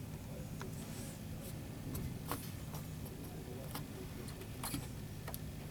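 Steady low hum inside a truck cab, with a few small, sharp clicks and taps scattered through it.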